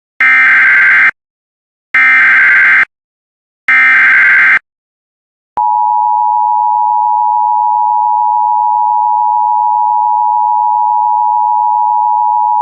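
Emergency Alert System header: three identical buzzing digital data bursts, each just under a second long, encoding the start of a flash flood warning. After a short gap comes a steady, unbroken alert tone.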